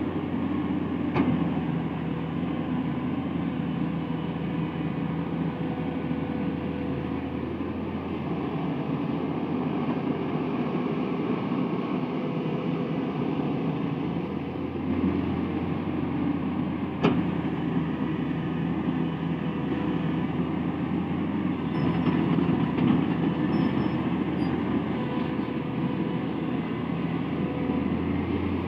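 Truck engine running steadily, with two sharp clicks or knocks, one about a second in and one about 17 seconds in.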